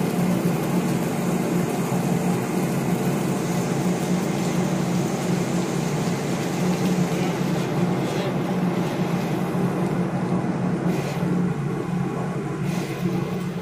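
Steady marine engine drone with a hiss of wind and water over it.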